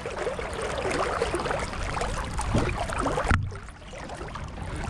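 Water rushing and splashing along the wooden hull of a Streaker sailing dinghy under sail, with wind buffeting the deck-mounted microphone. About three and a half seconds in, the noise drops suddenly, then builds again.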